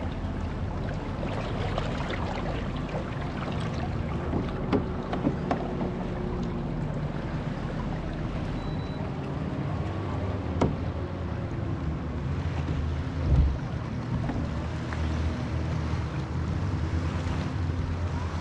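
Wind on the microphone and water lapping around a fishing kayak, with a few sharp knocks and a low thump.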